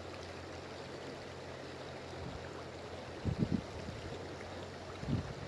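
Shallow stream running over a rocky bed, a steady rush of water. A few short low bumps come about three seconds in and again near the end.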